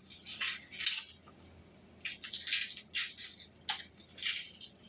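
Dry, papery yellow-onion skin crackling and rustling as it is peeled off by hand, in four or five short bursts.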